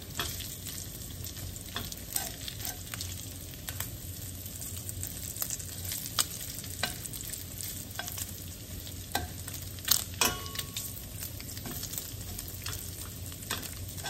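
Bacon sizzling in its own fat in a stainless steel skillet, with metal tongs clicking and scraping on the pan as the strips are turned. A few sharper clicks come about ten seconds in.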